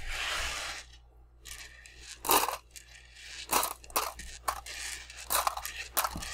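Small coloured balls being swept and picked up off a tabletop by hand: a short sliding scrape at first, then a string of separate clicks and knocks as they are gathered.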